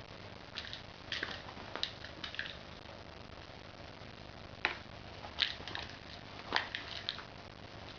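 Kitten playing with a toy mouse: scattered light taps, clicks and scuffles of paws and toy, in short irregular clusters.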